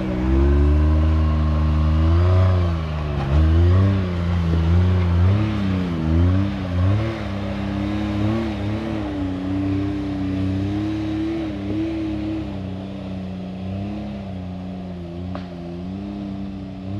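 Can-Am Maverick X3's turbocharged three-cylinder engine revving up and down in short pulls under load as the side-by-side works up a hard rocky climb, with a heavy low rumble over the first few seconds before the revs settle to a steadier pitch.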